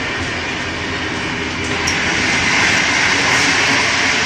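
Running noise inside a moving passenger train: a steady rushing rumble of wheels on rail that grows louder about two seconds in, as the connecting doors between carriages are passed.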